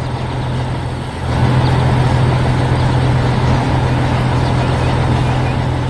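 Heavy construction machine's engine running with a steady low drone, getting louder about a second in.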